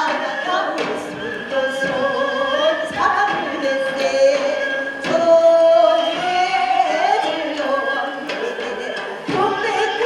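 Korean sinminyo (new folk song) sung by a traditional folk singer, with long held notes that bend and waver in pitch.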